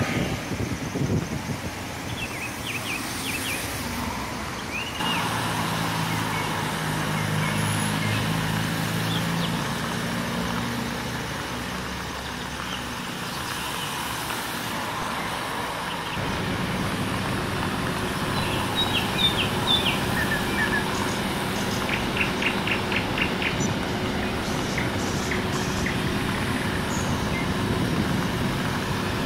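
Claas tractor's diesel engine running steadily as it pushes snow with a front plow blade; after a cut about halfway through, a wheel loader's engine runs steadily. Birds chirp now and then.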